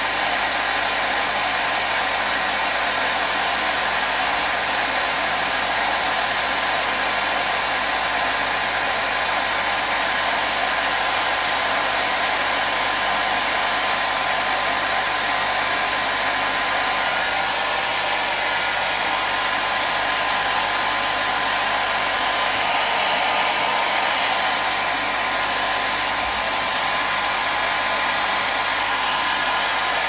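Hair dryer running continuously, a steady even blowing hiss with a faint motor whine and no changes in speed.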